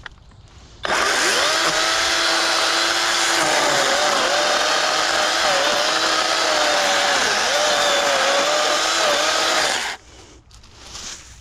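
Kobalt battery electric chainsaw starting up and cutting pine fatwood. Its steady whine sags and recovers again and again as the chain bites, then stops abruptly near the end.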